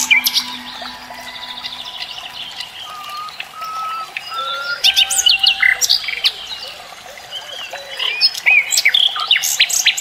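Several birds chirping and singing: quick chirps and short whistled phrases that rise and fall, busiest about five seconds in and again near the end.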